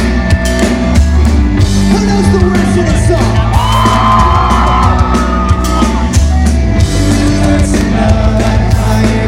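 Pop-punk band playing live at full volume: a heavy, steady bass and drums under a lead vocal, with a sung line that is held and slides in pitch about four seconds in.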